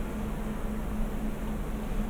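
Steady background machine hum with hiss, a low tone that pulses evenly, with no distinct handling sounds standing out.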